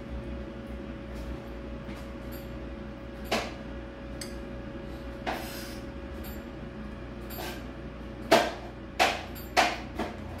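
Knife blade knocking and scraping against a ceramic plate while spreading a cream filling on a cake layer: a couple of sharp knocks, then four louder ones in quick succession near the end, over a steady low hum.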